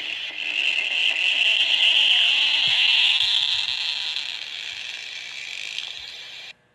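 Stomach growling sound effect: one long rattly, gurgling growl that swells to its loudest about two seconds in, fades slowly and cuts off suddenly near the end.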